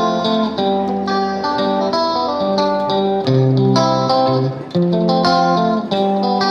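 Intro music: plucked guitar playing a melody with chords, notes changing several times a second.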